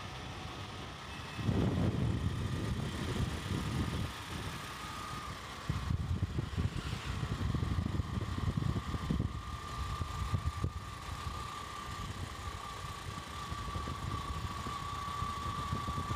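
Motorcycle riding at road speed: wind rumbles on the microphone in gusts, with a steady whine that grows stronger in the second half.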